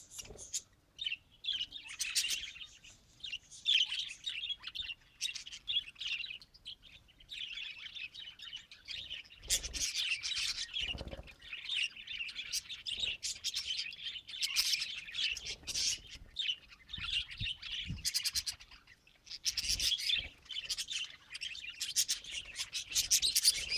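Budgerigars chirping and warbling in a fast, chattering run of short chirps and clicks, broken by brief pauses.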